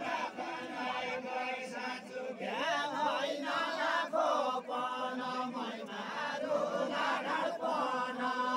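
A group of men singing a deuda folk song together, many voices at once, with no break.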